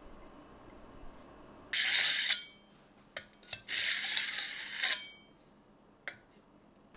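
Glazed ceramic cups handled against each other or a hard surface: two scraping rubs, the second longer, with a few light clicks of pottery between and after them.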